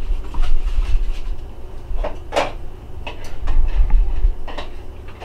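A serving spoon clinking and knocking against a saucepan and bowls as chili is dished out: a string of irregular knocks, the loudest about two and a half seconds in.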